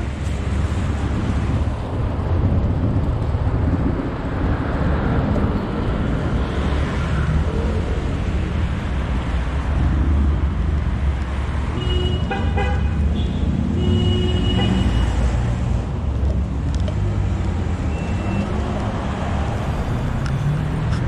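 Kick scooter rolling over sidewalk paving stones with a steady low rumble, and city traffic passing alongside. About twelve seconds in, a car horn sounds in a quick run of short beeps, then gives a longer blast about two seconds later.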